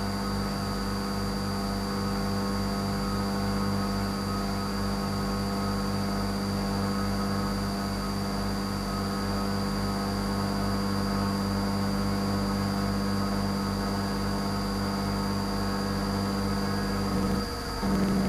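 Syil X5 Pro CNC mill running a program, its spindle turning an end mill that cuts aluminium stock: a steady hum with a high whine over it. About seventeen seconds in the sound dips and changes abruptly.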